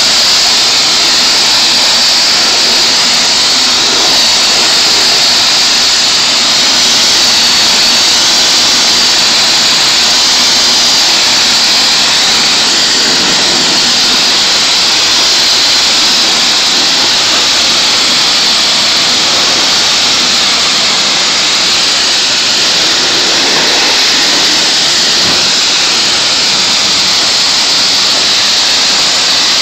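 Pressure washer jet spraying water onto a car's body panels while it is rinsed: a loud, steady hiss.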